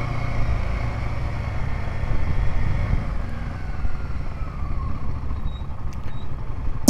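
Motorcycle running while being ridden, heard as a steady low rumble with a faint whine that slowly falls in pitch over the first few seconds.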